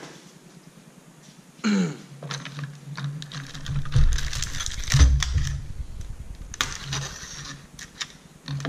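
Hands unpacking a steel clamping set: plastic wrap crinkling and rustling, with many small clicks and knocks of steel parts in a plastic tray. Two heavier thumps come about four and five seconds in.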